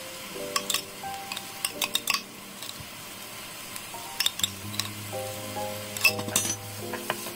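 Chopped green onion and garlic sizzling in butter in a non-stick wok, with sharp clicks of a metal spoon and a wooden spatula against the pan as abalone-gut paste is added.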